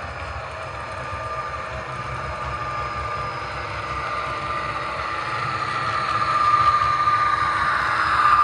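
Model train running on a layout, with a steady thin whine over a low rumble that grows louder over the last few seconds.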